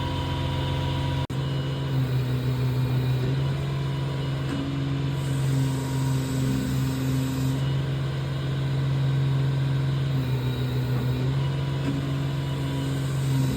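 An engine running steadily with an even low hum, its pitch holding; the sound drops out for an instant about a second in.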